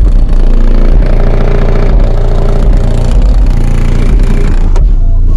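Bass-heavy music played loud through a Kicker Solo-X 18-inch subwoofer driven by a Rock Series 1400 W RMS amplifier, the deep bass dominating and pushing the recording to its maximum level.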